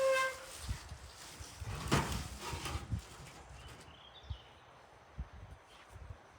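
A short pitched animal call, then scattered knocks and thumps, with a faint chirp about four seconds in.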